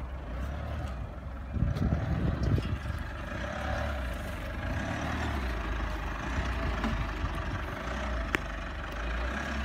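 Mitsubishi Pajero Sport SUV's engine running at low revs as it crawls over rough grass. The rumble grows louder for about a second, roughly two seconds in.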